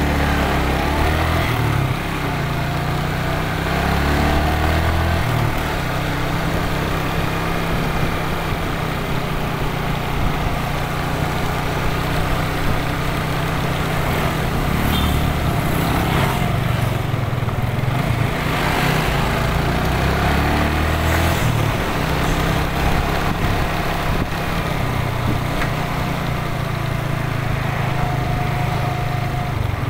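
Motor scooter engine running, its pitch rising and falling as the revs change, with other motorcycles' engines mixed in.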